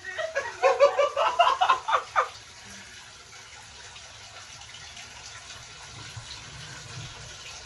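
Bathtub tap running, water pouring steadily into the tub. Over the first two seconds an excited voice, like laughing or squealing, rides over it.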